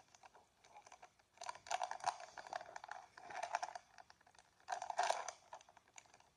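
Plastic blind bag crinkling and tearing as it is pulled open by hand, in three bursts of crackling.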